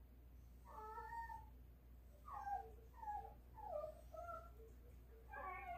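Dog whining in high, whistle-like calls, about six short whines, several sliding down in pitch: begging to be given meat.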